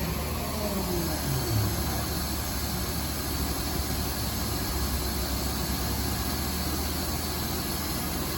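Steady low hum and hiss of powered-up machinery. A falling whine in the first second and a half sounds like a motor winding down.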